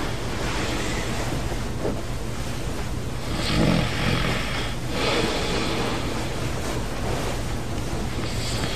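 A sleeping man snoring loudly in long, breathy snores: one about three and a half seconds in with a low rumble, another right after it, and a third near the end, over a steady low room hum.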